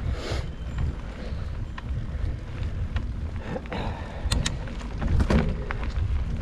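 Mountain bike riding down a dirt trail: a steady low rumble of wind on the microphone and tyres on the ground, with scattered clicks and rattles from the bike and the trail surface.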